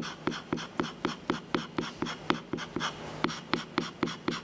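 Hand scraper draw-scraping a soft Turcite wear strip on the underside of a lathe cross slide, in quick, even strokes about four a second, each a sharp click followed by a short scratch. The strokes are knocking down the high spots left by the marking blue.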